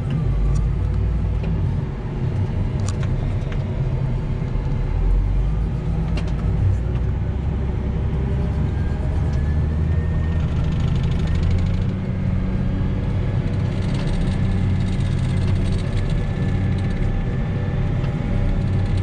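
A large farm machine's engine running steadily, its sound mostly low-pitched, with a faint rising whine about halfway through.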